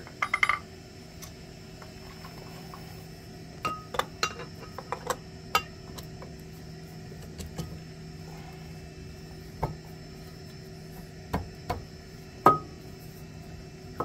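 Steel ring gear of a Massey Ferguson 461's front hub clinking and knocking against the hub as it is worked into place by hand. The clinks come in scattered clusters: near the start, around four to five and a half seconds in, and again late on, with the sharpest knock near the end.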